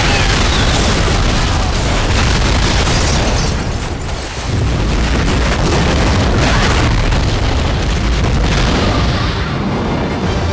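Film sound effects of a massive fuel-fed explosion tearing through a dock and boats: a continuous run of deep booming blasts with heavy low rumble. It dips briefly about four seconds in before another blast renews it, and thins out near the end.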